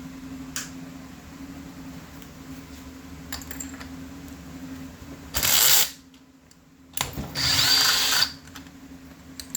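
A power drill-driver run in two short bursts, about five and a half and seven seconds in, backing screws out of a chainsaw's housing. The motor's whine climbs and then holds in the second, longer run.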